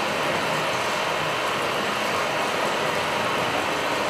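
Steady rushing, noise-like ambient sound from the dance's soundtrack, with no beat, clear notes or sudden sounds.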